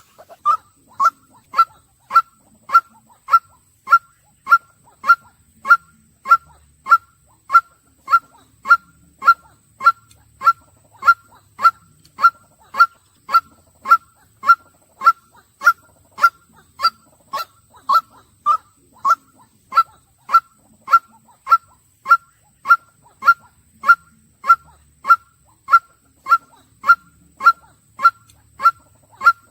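White-breasted waterhen giving its monotonous 'kwak' call: one short, slightly falling note repeated steadily about twice a second.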